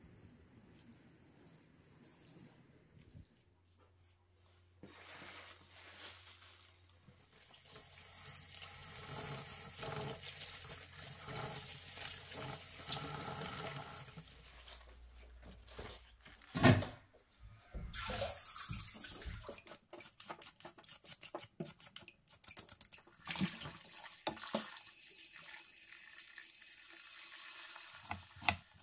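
Water running from a kitchen tap into a sink as green onions are washed by hand in a glass bowl, with water splashing over the stalks. About two-thirds of the way through there is one loud knock, followed by a few lighter clatters.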